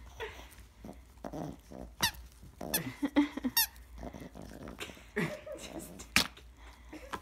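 Squeaky dog toy squeaking sharply several times, about two to four seconds in, as a small terrier bites and worries it out of its gift wrapping, with a few low dog growls.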